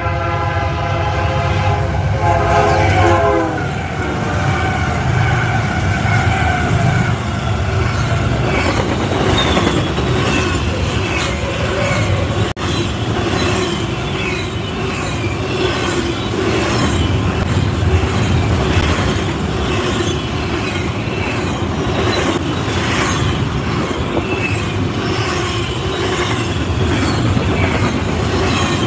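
Freight train locomotive's horn sounding as it nears, dropping in pitch as it goes by and stopping about three and a half seconds in. Then a double-stack container train rolls past with a steady rumble, wheels clicking over the rails and now and then a high wheel squeal.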